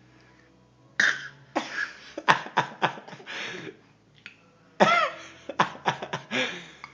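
A baby coughing in two bouts of short, repeated coughs, the first starting about a second in and the second near five seconds in.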